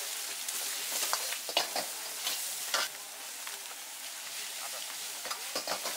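Egg, onion and bean sprouts sizzling in hot oil in a wok, with a steel ladle stirring, scraping and knocking against the wok several times, mostly in the first three seconds and again near the end.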